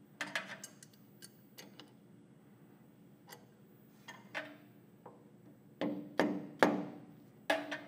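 Soft-faced hammer tapping a milling machine's cast metal tailstock to bump it down into alignment, with four sharp knocks near the end. Lighter clicks and knocks come earlier as the tailstock is handled.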